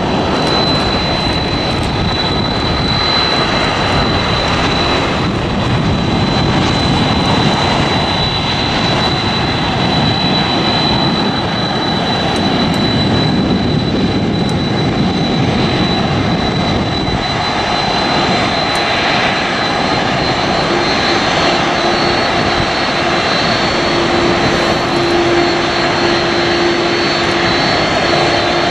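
Jet airliner's turbofan engines running steadily: a loud, even roar with a thin high whine. About two-thirds of the way in, a lower steady hum joins.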